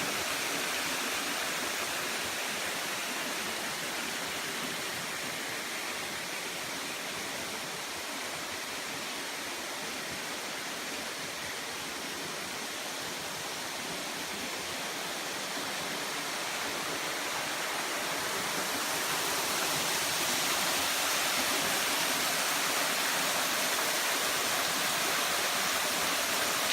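Waterfall, water pouring down in a steady rushing hiss that eases a little mid-way and grows louder again in the last third.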